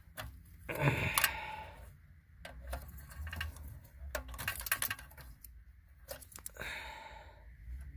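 Plastic wiring-harness connectors being pressed at their release tabs and pulled out of the back of a car radio: a run of sharp plastic clicks mixed with rustling and scraping of the plugs and wires, in several short spells.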